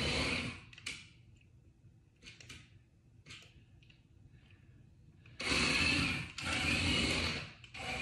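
Small remote-control toy car's electric motor and gears whirring in bursts as it is driven: one burst stops about half a second in, then after a quiet stretch longer runs start about five and a half seconds in, with a short break near the end.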